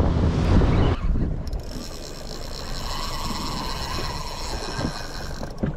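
A fishing reel whirring with a steady high whine, starting about one and a half seconds in and stopping suddenly near the end, while a hooked fish is on the line. A boat's outboard motor runs low underneath, loudest in the first second.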